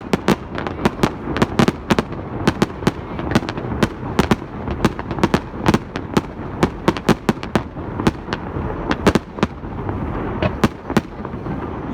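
Fireworks going off: a rapid, irregular run of sharp bangs and crackles, several a second, over a continuous rumble, with a short lull about ten seconds in.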